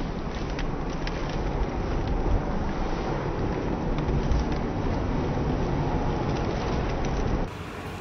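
Steady low rumble of wind on the microphone and street traffic, with a few sharp clicks of a potato chip being bitten and crunched near the start. The rumble cuts off abruptly about seven and a half seconds in, leaving quieter street sound.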